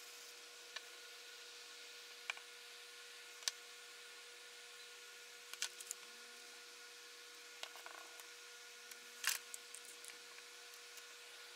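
Irwin Quick-Grip one-handed bar clamps being set and squeezed onto glued-up wooden boards: scattered short clicks and knocks, the loudest about nine seconds in, over a low steady hiss and a faint hum.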